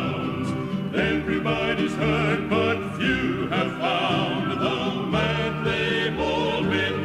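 Recorded music: a male gospel vocal quartet singing with instrumental backing.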